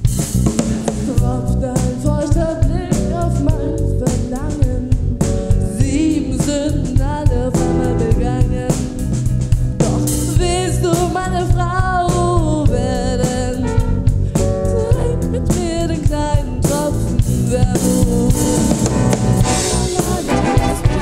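Big band playing live, with a group of vocalists singing together over a steady drum-kit beat.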